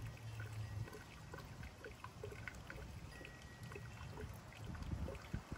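Gasoline trickling slowly from a gas can through a funnel into the fuel tank of a Westinghouse iGen2200 inverter generator, a faint steady pour with scattered small drips and ticks.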